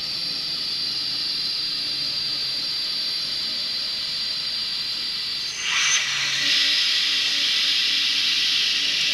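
N-scale model passenger train running on the layout track: a steady high-pitched whine and hiss. A little past halfway, a louder, wider hiss swells in and holds.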